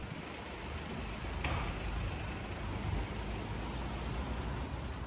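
Strong wind buffeting the microphone: a steady rushing noise with a heavy, fluttering low rumble.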